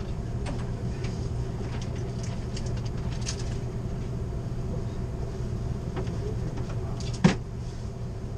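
Steady low hum inside an Amtrak Superliner passenger car standing still, with no wheel or rail noise, and a few faint ticks. One sharp knock about seven seconds in is the loudest sound.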